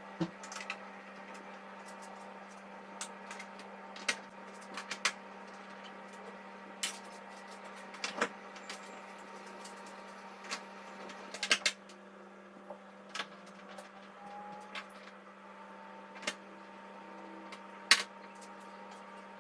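Scattered sharp clicks and taps as a TV's plastic back cover is fitted and screwed back on, over a steady low hum.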